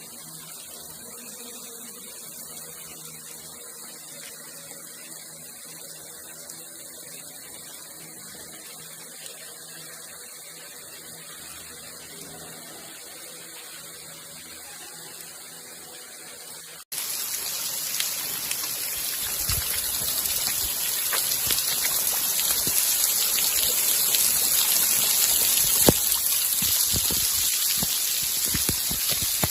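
A faint steady hum, then an abrupt change about 17 seconds in to a louder, steady rushing noise of running or splashing water, with a few scattered knocks.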